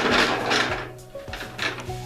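Background music with held tones, and a short hissing noise about the first half-second.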